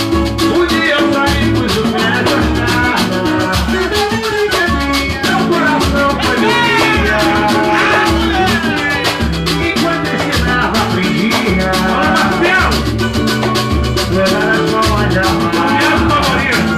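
Band music with a lead voice singing over busy percussion and a steady bass line.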